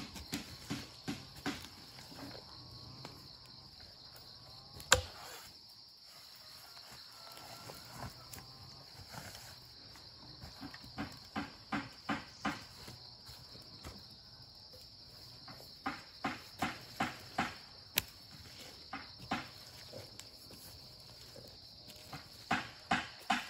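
Hoe chopping into loose soil in runs of about two to three strokes a second, over a steady high chirring of insects. A single sharp knock about five seconds in is the loudest sound.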